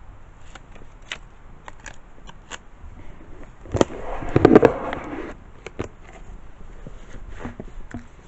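Paper and packing items being handled: scattered light taps and clicks, with a louder rustle and scrape about four seconds in that lasts just over a second.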